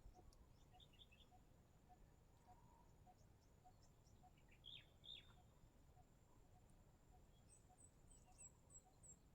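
Near silence: faint outdoor ambience with birds chirping, two louder chirps about halfway and a quick run of short high notes near the end, over a faint steady high tone.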